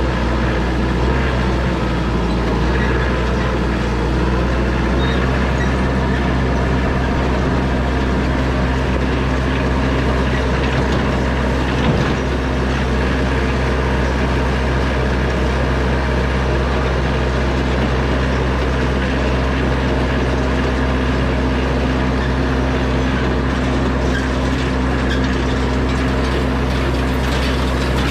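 Yanmar compact tractor's diesel engine running steadily under way, towing an antique wheel hay rake, with a mechanical clatter that grows more noticeable near the end and one knock about halfway through.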